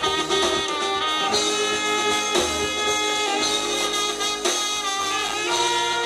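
Live band playing: saxophone and trumpet hold horn lines over electric guitars, bass guitar and a drum kit. The horns move from one held note to the next about every second.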